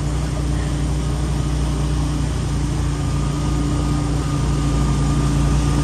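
ATV engine running at a steady speed while the machine is ridden across wet grass, a constant drone with tyre and wind noise underneath.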